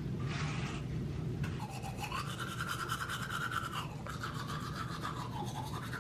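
Teeth being brushed with a toothbrush: a steady buzzing tone from about a second and a half in, dipping in pitch now and then as the brush moves in the mouth.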